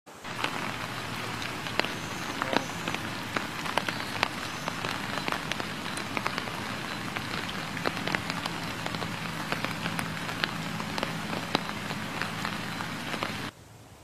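Steady rain falling, with many separate drops ticking close by; it cuts off suddenly near the end.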